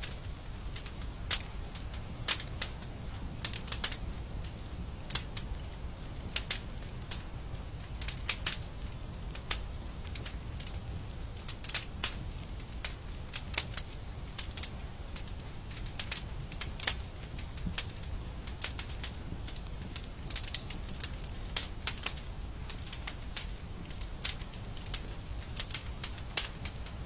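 Wood fire crackling: irregular sharp snaps and pops, a few louder ones standing out, over a steady low rumble.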